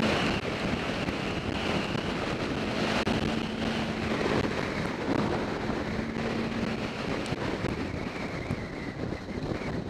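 Wind rushing over the microphone of a camera mounted on a moving motorcycle, a steady loud rush at road speed. A faint steady engine note shows through at times.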